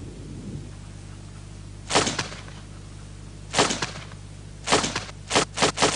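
Revolver gunshots, sharp cracks each with a short echo: single shots about two seconds in and three and a half seconds in, then a quick run of shots close together near the end.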